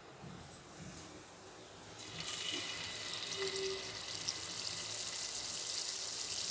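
Batter-coated paneer pieces going into hot oil: quiet at first, then about two seconds in a steady sizzle starts and keeps going as the pieces fry.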